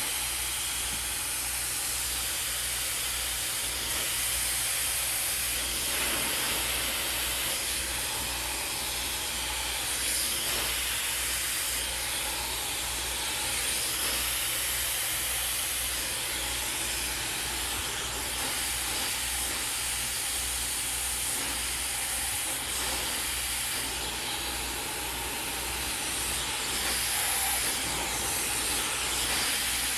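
Handheld hair dryer blowing at full airflow into hair wound on a round brush, a steady rushing hiss over a low motor hum, its level shifting only a little.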